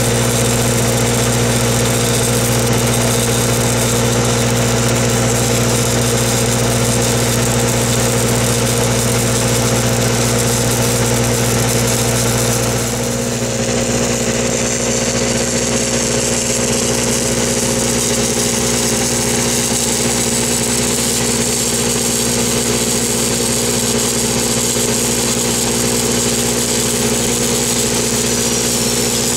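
Engine-driven welding machine running steadily, with a constant low hum that shifts slightly about 13 seconds in.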